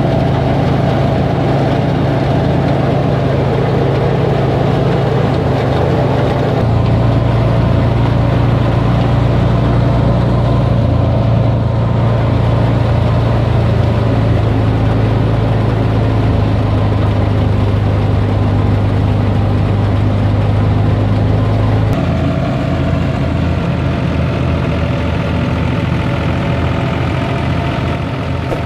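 Massey Ferguson 260 tractor's three-cylinder diesel engine running steadily under load, driving a thresher as straw is fed into it. The engine's hum and the thresher's drone run together as one loud, steady sound, whose tone shifts abruptly about 7 seconds in and again about 22 seconds in.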